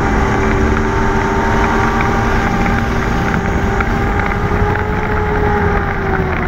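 Dirt-track race car engine running hard at steady high revs, heard from inside the cockpit, its pitch rising slightly and then easing off around five seconds in, over a constant low rumble.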